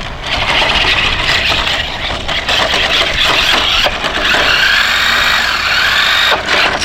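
Toy remote-control truck driving, its small electric motor and plastic gearbox whirring, with a whine that rises and falls with the throttle about two-thirds of the way through.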